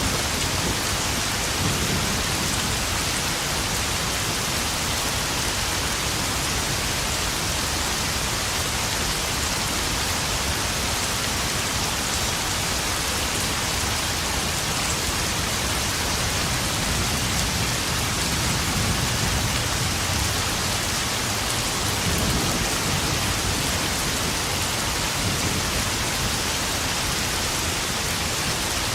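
Steady rain falling and pattering on puddles, with low rumbles of thunder underneath now and then.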